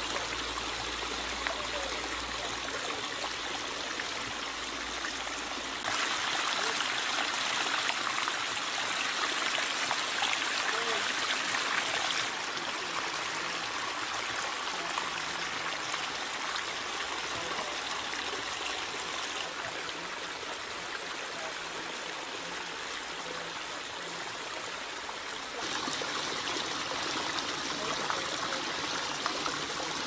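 Water of a backyard pondless waterfall splashing and cascading over granite boulders in small falls, heard close up. The steady rush gets louder about six seconds in, drops back a little about halfway, and rises again near the end.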